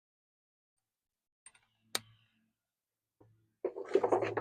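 Hand tools on the truck's U-bolt nuts, a ratchet with an extended deep socket: a sharp metallic click about two seconds in, then louder clattering work noise near the end.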